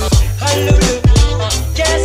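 Hip-hop style background music with a steady beat of deep kick drums under a bass line and melody.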